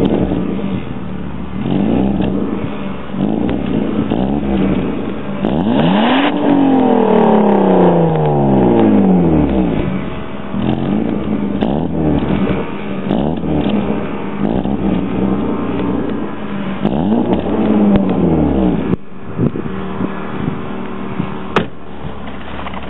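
BMW 325i E36's 2.5-litre straight-six through its stock exhaust, revved repeatedly, each rev climbing and then falling away, before settling to a steady idle for the last few seconds.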